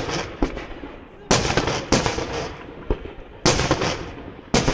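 Aerial firework shells bursting: a string of loud bangs, about six in under five seconds at uneven intervals, each trailing off in a rumbling echo.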